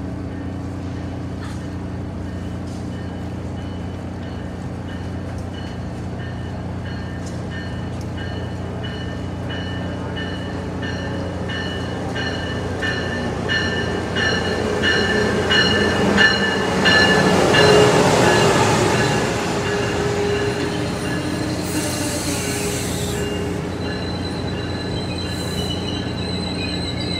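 First-generation Amtrak Acela Express trainset approaching and passing through the station, a bell ringing about twice a second as it comes in. The noise of the power car and wheels swells and peaks as the front passes, then settles as the coaches roll by, with a high wheel squeal near the end.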